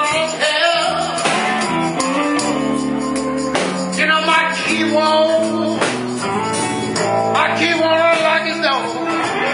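Live blues band playing a slow blues: an electric guitar lead with sustained, bending notes over drums, bass and hand percussion, with singing.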